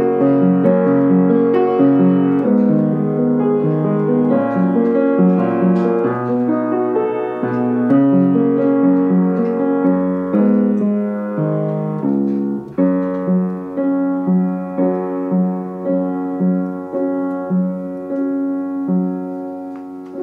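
Instrumental piano backing track with no voice: sustained chords at first, then, about two-thirds through, a steady repeated note pattern, about one note every 0.7 s, gradually growing quieter toward the end.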